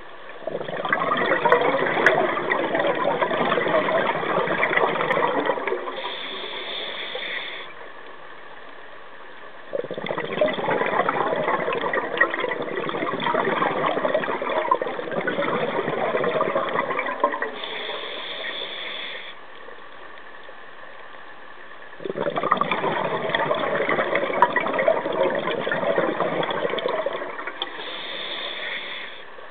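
Scuba diver breathing through a regulator, heard through an underwater camera housing. Three long rushes of exhaled bubbles each end in a shorter, higher hiss of the next breath, and the cycle repeats about every eleven seconds.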